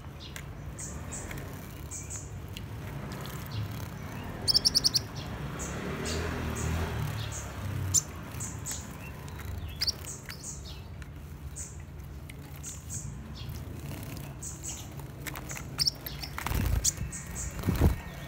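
Crimson sunbird giving short, high chirps every second or so, often in pairs, with a quick run of rapid high notes about four seconds in. A few knocks near the end, over a steady low rumble.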